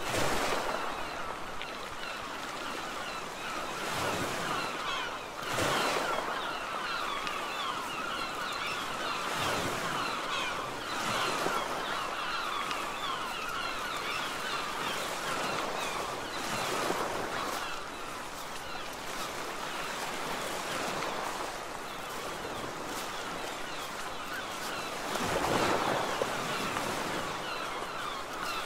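Surf washing ashore in repeated swells, with a dense chatter of many birds calling throughout.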